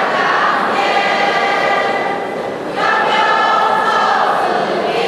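A class choir of junior-high students singing their school song, in long held notes. A new phrase starts louder a little under three seconds in.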